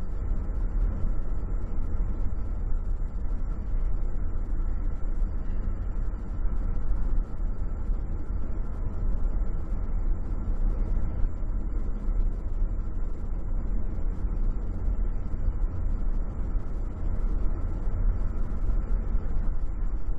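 Steady road and engine noise inside a moving car's cabin, a low drone from tyres and engine, recorded through a cheap camcorder's built-in microphone.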